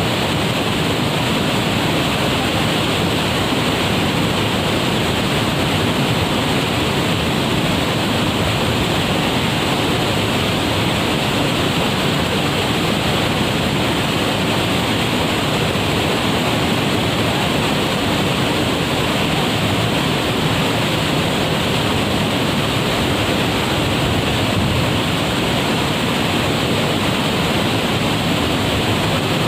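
Waterfall crashing steadily into its pool, a loud constant rush of water.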